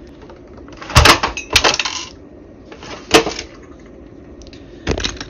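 Hard plastic clunks and clatter as a small Sony micro TV is handled and shut into its plastic case. There is a sharp knock about a second in, a rattle just after it, another knock near the middle and a last one near the end.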